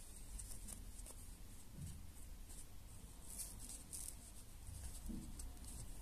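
Faint scratching and rustling of a crochet hook and yarn being worked through the edge of a felt slipper sole, with a few soft scrapes about three to four seconds in.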